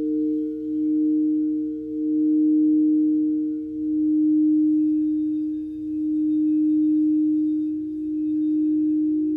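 Singing bowl held ringing, a steady low hum with a fainter higher tone above it, swelling and easing about every two seconds with no strikes.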